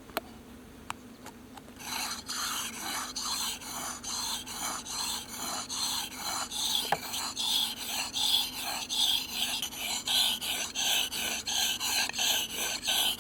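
Knife blade being stroked back and forth across a sharpening stone for a convex edge. After a couple of light clicks, rhythmic scraping strokes start about two seconds in, about two a second.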